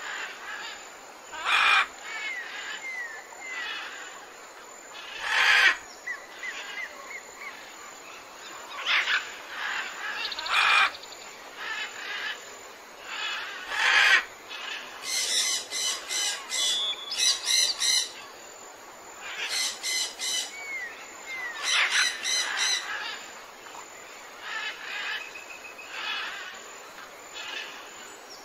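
Wild birds calling and chirping: short sharp calls, small falling whistled notes, and bursts of rapid repeated chirps in the second half.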